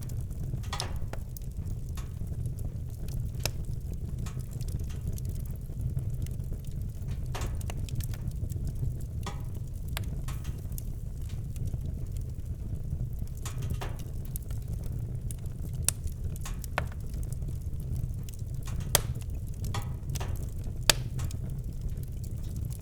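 Campfire crackling: scattered sharp pops and snaps of burning wood over a steady low rumble, with a few louder pops in the second half.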